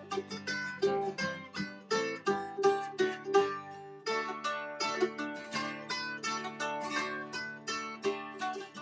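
Music of quickly picked plucked strings, mandolin- or banjo-like, playing a running melody over a steady lower line.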